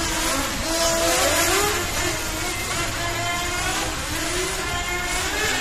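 Electric 1/10 RC touring cars running on a track: their motors whine, rising and falling in pitch again and again as they speed up and slow down, over a steady hiss.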